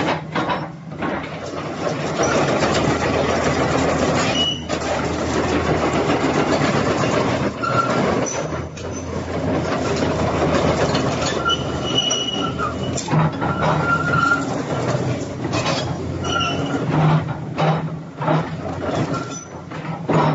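Caterpillar 330 hydraulic excavator running and working, its engine a steady low hum under metal clanks and knocks. High squeals come and go, loudest about twelve to fourteen seconds in.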